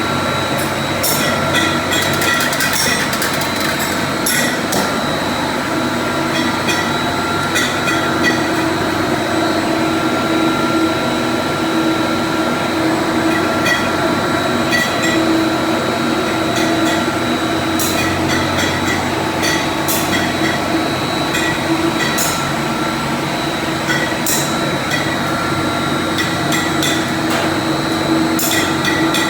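Irregular hammer taps and knocks on metal during electric pump motor repair, over a steady hum.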